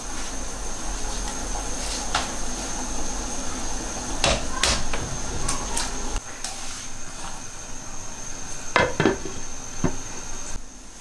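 Wide noodles cooking in a wok of boiling water on a gas stove: a steady hiss from the pot, broken by a few sharp clinks of cookware, a close pair around the middle and another near the end as the glass lid is handled.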